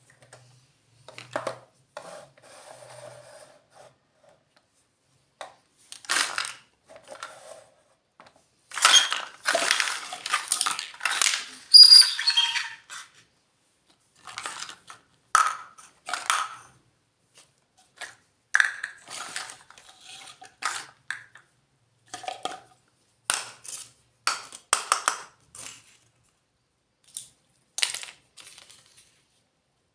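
Small pieces of a miniature toy kitchen set and their packaging being handled during unboxing: scattered clicks, taps, clinks and rustles with short quiet gaps, the busiest stretch about nine to thirteen seconds in.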